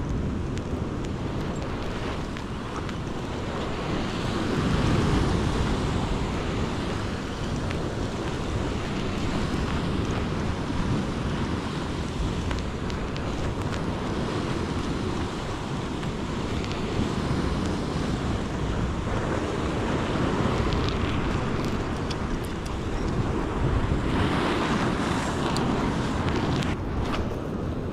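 Ocean surf washing and breaking against a rock ledge, with wind buffeting the microphone. The wash swells louder about four seconds in and again near the end.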